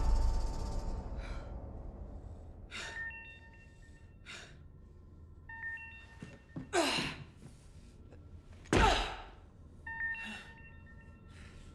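A woman breathing hard in gasps and heavy exhales, one every second or two, two of them louder and strained, one with a falling groan; the tail of a crash dies away at the start.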